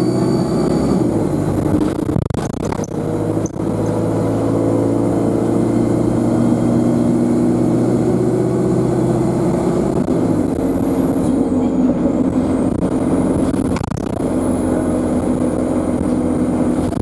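Onboard a Euro 5 Alexander Dennis Enviro200 bus: the diesel engine runs steadily under way with a thin, high turbo whine. About ten seconds in, the engine note changes and the whine drops in pitch, then climbs again. A few short knocks and rattles are heard.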